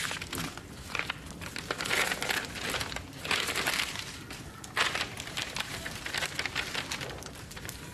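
Paper letters crumpling and rustling as they are pushed into a fireplace fire, in several rustles about a second apart, with the wood fire crackling and the rustling dying down near the end.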